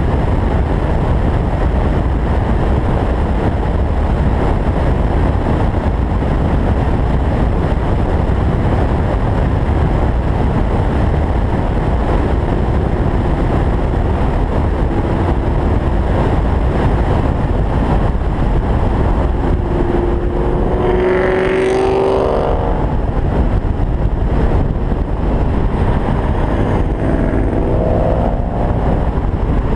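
Wind rushing over an open convertible at highway speed, over steady engine and tyre noise. About two-thirds of the way through, an engine revs up in a steep rising pitch, and revs up again more briefly near the end.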